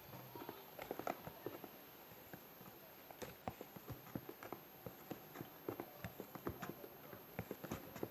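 A spoon stirring a flour-and-water mix in a small bowl. It makes irregular clicks and taps against the bowl, several a second.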